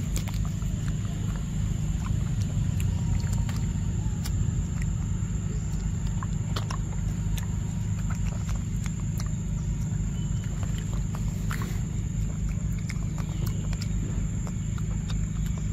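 A macaque eating fruit close to the microphone: scattered small clicks and smacks of biting and chewing over a steady low rumble, with a faint steady high whine throughout.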